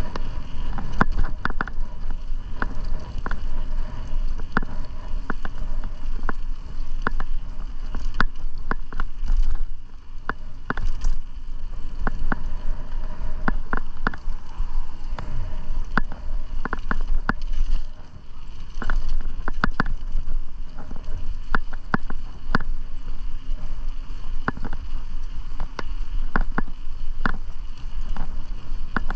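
Bicycle riding on a paved trail: a steady low rumble of wind rushing over the microphone, with frequent irregular clicks and rattles from the bike over the pavement.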